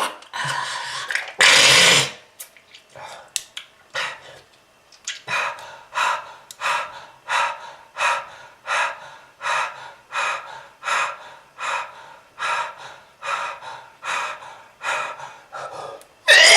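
A person coughs hard once, then pants rapidly and evenly, about two breaths a second, catching their breath after a coughing fit.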